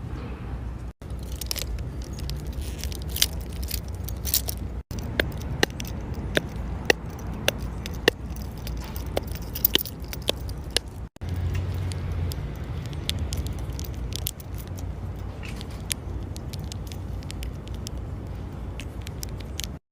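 Fidget toys being handled close to the microphone: irregular sharp clicks, snaps and crackles over a low rumble, in several short segments with abrupt cuts between them.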